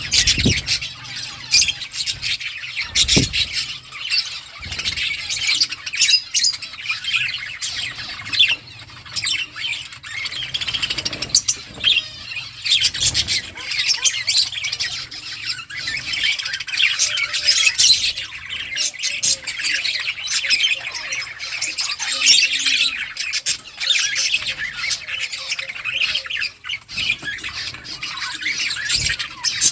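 A colony of budgerigars chattering and chirping, many birds calling over one another without a break, with a couple of low thumps in the first few seconds.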